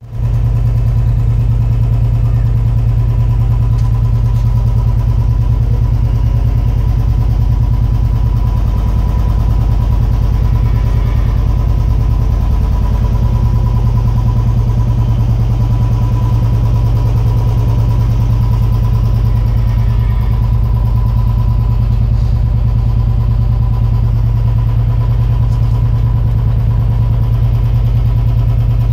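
An engine running steadily at idle, a loud low drone with a faint high steady tone over it.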